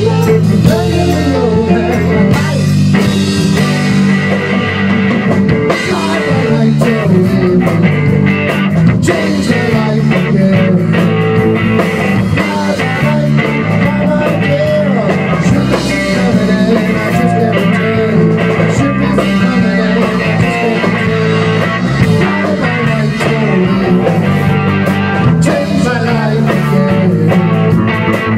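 Rock band playing live and loud: electric guitar, electric bass and a Tama drum kit.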